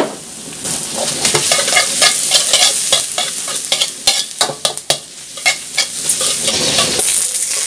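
Sliced onions sizzling in butter in a steel wok, stirred with a metal spatula that scrapes and clicks against the pan again and again.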